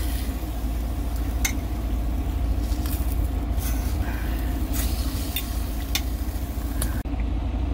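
Fork turning over and prodding a pork roast in a slow cooker's stoneware crock, giving a few light clicks and scrapes against the pot, over the steady low rumble of the truck's engine in the cab.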